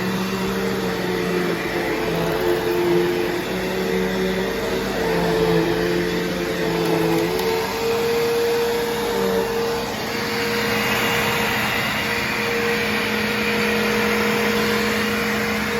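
Bissell CleanView Revolution Deluxe upright vacuum running steadily. Its motor hum wavers in pitch for the first half, then holds steady.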